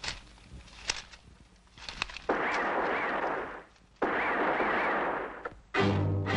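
Light rustling and knocks of hay, then two long breathy blasts about a second and a half each. Near the end a horse breaks into a loud whinny.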